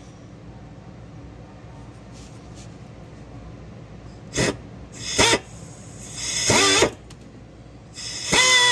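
Power drill motor giving three short trigger bursts, each spinning up and winding down, then running steadily near the end as it drills the final-size hole through a plastic fuel tank.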